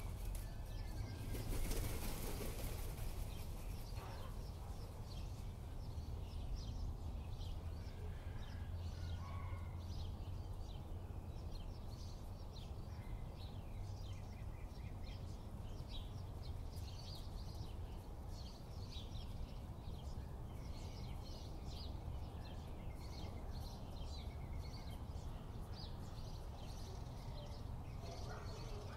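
Outdoor ambience of many short, high bird chirps over a steady low rumble, with a brief flurry of flapping bird wings about two seconds in.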